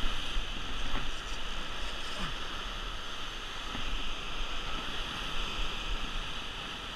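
Ocean surf surging and breaking against rocks, a steady wash of noise, with wind rumbling on the microphone.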